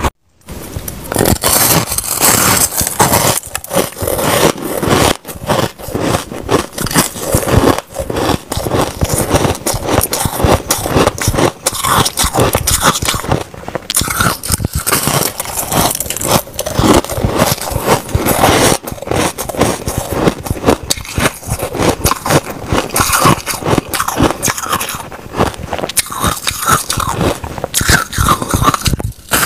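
Close-miked biting and chewing of chunks of powdery white frozen ice, a dense run of sharp crisp crunches and crackles that begins after a brief gap at the start.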